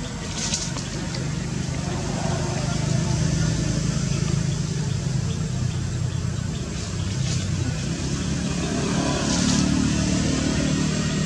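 A motor running steadily, heard as a low hum under general outdoor background noise.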